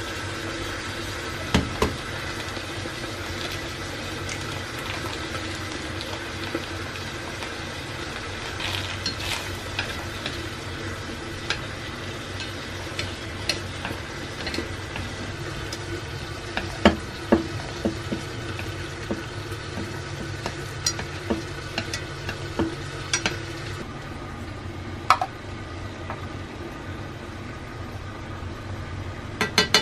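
Chopsticks stirring noodles and egg in an enamel saucepan on a hotplate, with scattered sharp clicks and taps against the pot, over a steady hum and light sizzling from the pan. A quick cluster of clicks comes near the end as chili sauce is spooned in.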